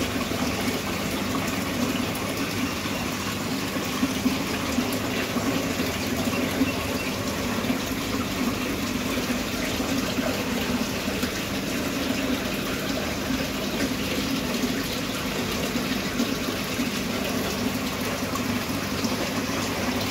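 Saltwater aquarium water circulating: a steady rush of running, splashing water with a low hum under it.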